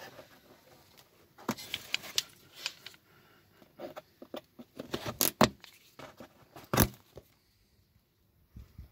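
Scattered sharp clicks and knocks of hand tools prying at the plastic clips of a car's wheel-arch liner, the loudest about five and seven seconds in.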